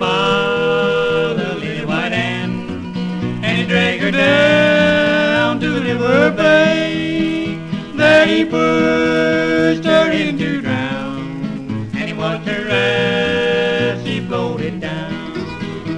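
Old-time country duet recording: mandolin and guitar accompaniment under long held sung notes that slide between pitches.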